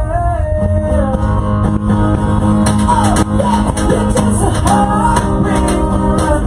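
Live rock band playing at full volume, with electric guitar, bass and drums under a singing voice.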